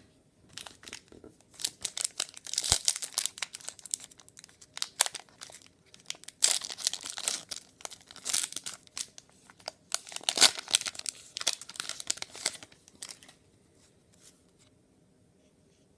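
A trading-card pack wrapper being torn open and crinkled, in irregular crackling clusters that stop about thirteen seconds in.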